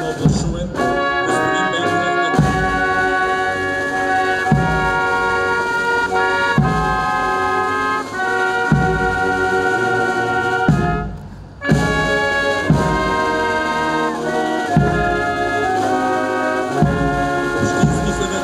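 Brass band playing: trumpets and trombones carry a held, slow tune over a low beat about every two seconds, and the music breaks off briefly about eleven seconds in.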